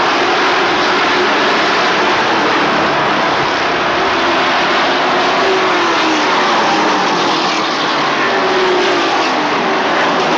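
A pack of race trucks' engines running at speed around an oval track, a continuous loud drone with engine notes dropping in pitch as trucks go past, several times in the second half.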